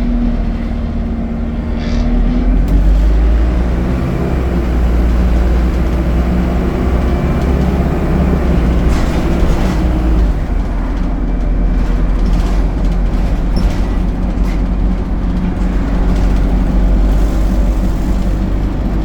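ADL Enviro 200 bus's diesel engine and drivetrain running steadily, a continuous low rumble with a slight rise in level about two seconds in.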